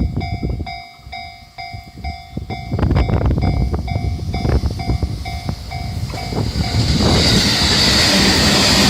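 Japanese level-crossing warning bell sounding a steady repeating ding while electric trains pass: wheels clatter over the rail joints in the first few seconds, and from about seven seconds in a train's loud rushing noise builds and covers the bell.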